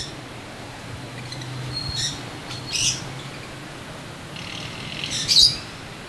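Aviary parrots giving a handful of short, high-pitched chirps and calls, the loudest about five seconds in, over a faint steady low hum.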